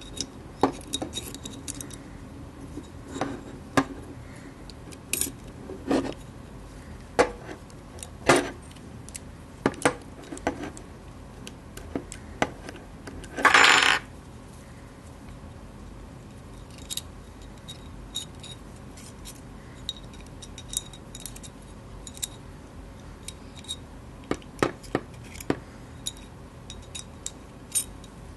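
Small metal pistol parts and tools clicking and clinking against each other and the work surface, in scattered light taps, with one louder noise lasting about half a second about halfway through.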